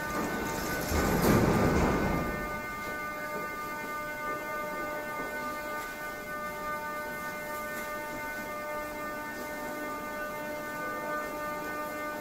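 Metro train standing at the platform: a short, loud rush of noise about a second in as its doors open, then a steady electrical hum with several fixed tones while it waits.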